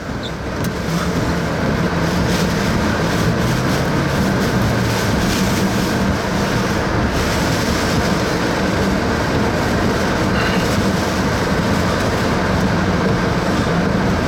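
A vehicle in motion, heard from inside: a steady low engine hum under loud, even road noise. The noise builds over the first two seconds as the vehicle gets going, then holds steady.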